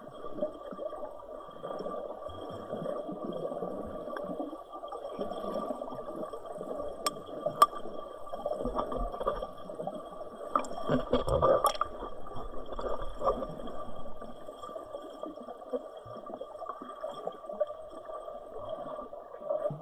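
Water gurgling and sloshing in a steady, muffled rush, with a few sharp clicks and knocks in the middle.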